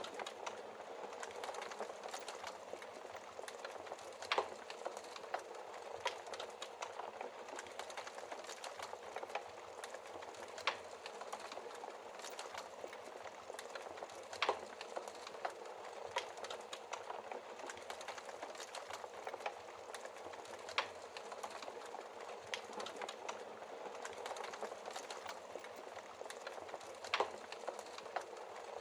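Wood fire burning in a fireplace: a steady hiss of flames with dense small crackles and a sharp louder pop every few seconds.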